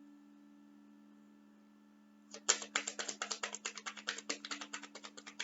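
A steady low electrical hum, then about two seconds in a fast, continuous run of light clicks, roughly ten a second.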